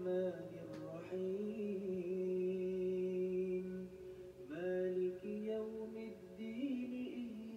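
A woman humming a slow, lullaby-like tune in long held notes, with a short pause about four seconds in, to settle a child to sleep.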